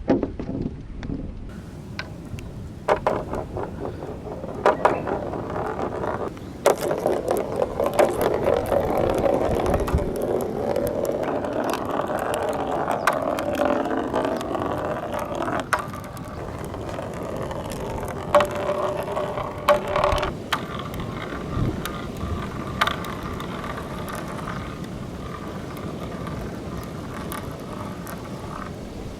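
Marbles rolling down a handmade wooden slope and rain-gutter track: a continuous rolling rumble broken by sharp clacks as they knock against the rails. The rolling is loudest about a third of the way in, then settles into a steadier, higher rolling hum.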